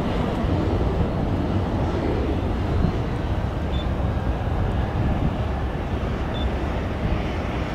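Boeing 737-800 freighter's two CFM56 jet engines running as it moves on the ground: a steady low rumble.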